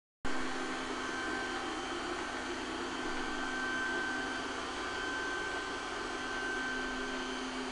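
Robot vacuum cleaner running as it drives across the floor: a steady motor whir with a low hum and a higher whine held throughout.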